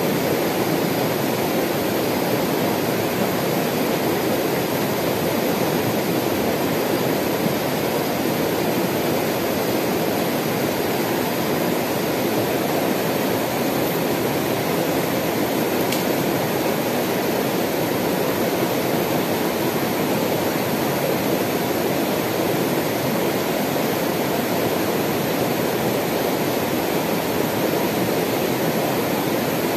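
Shallow mountain river rushing steadily over rocks and boulders.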